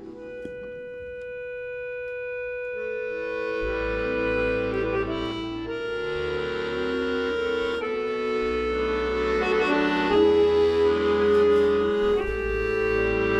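Accordion duet playing a slow tune. A single held note opens it, then chords and a bass line come in about three seconds in, and the music grows louder.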